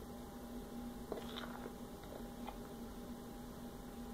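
Faint steady electrical hum, with a few soft clicks and chewing as someone eats from a bowl with a spoon.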